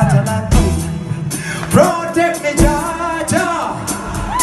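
A live reggae band is playing, with singing over the drums, electric guitars and keyboard.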